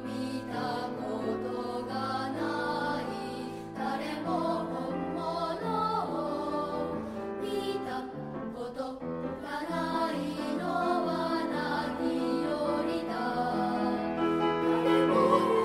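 Children's choir singing a choral song, growing louder near the end.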